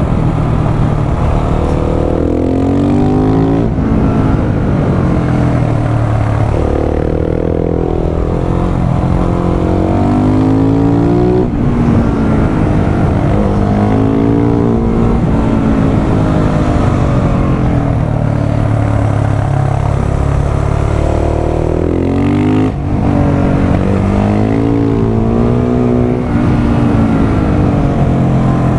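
Husqvarna 701 supermoto's single-cylinder engine under way, revving up repeatedly as it pulls through the gears, each climb in pitch falling back at a shift or a lift of the throttle. The sound cuts out sharply for a moment three times.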